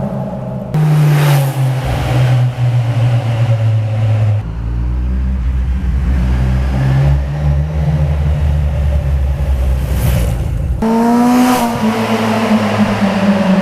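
Kawasaki Z1000 inline-four motorcycle engine running at idle and being revved, its note changing abruptly several times. About 11 seconds in there is one rev that rises and falls.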